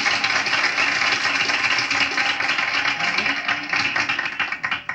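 Studio audience applauding, dying down near the end.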